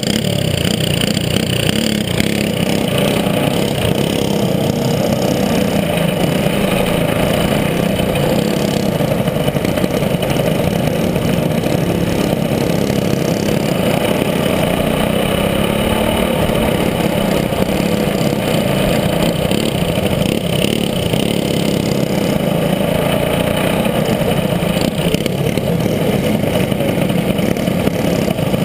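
A go-kart's single-cylinder engine running continuously at a fairly steady pitch, heard close up from on board the kart.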